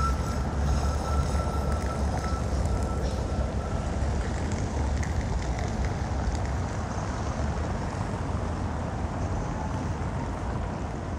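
Steady outdoor street noise: a low traffic rumble, with a faint high tone that fades out a few seconds in.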